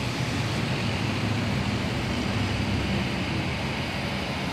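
Steady hiss from the rain-soaked street outside, with a car's low engine hum underneath, heard from inside the car through a partly open side window.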